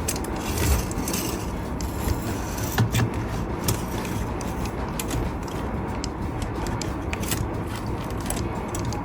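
Small handling noises on a 1:24 scale model car: scattered light clicks and taps over a steady scraping hiss.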